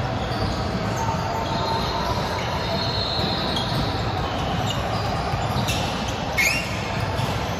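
Sneakers squeaking on a hardwood gym floor over the steady din of a large indoor sports hall, with a sharper rising squeak and a couple of clicks about six and a half seconds in.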